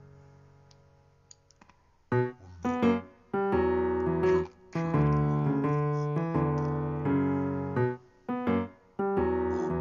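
Background piano music: a held chord fades almost to silence, then slow piano chords start about two seconds in and carry on.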